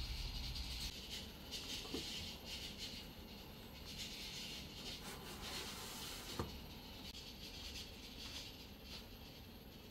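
Faint rustling handling sounds of king oyster mushrooms being torn into strips and laid on parchment paper in an air fryer basket, with a sharp click about six and a half seconds in.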